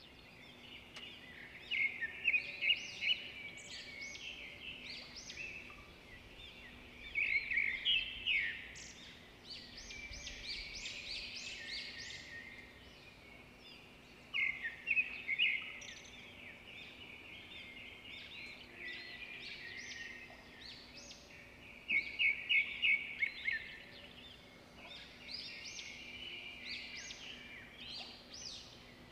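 Birds chirping in bursts of quick, high notes, several runs of them through the stretch, over a faint steady hum.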